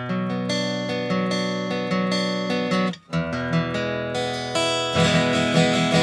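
Background music of acoustic guitar playing chords, with a brief drop in level about three seconds in.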